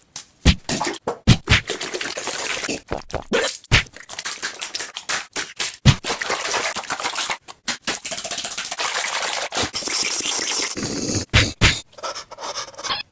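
A rapid, irregular string of sharp hits and low thumps mixed with stretches of dense hiss, changing in texture about eleven seconds in.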